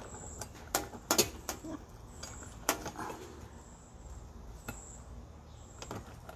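Sharp metallic clicks and knocks at irregular intervals, a quick cluster about a second in and single ones later, as the perforated metal leveling leg of a Sun Oven solar box cooker is slid and reset to raise the oven.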